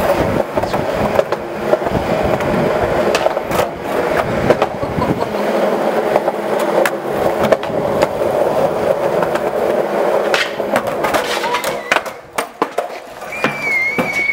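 Skateboard wheels rolling over a concrete walkway, a steady rumble broken by sharp knocks of the board striking the ground. The rolling fades about twelve seconds in, leaving a few separate knocks.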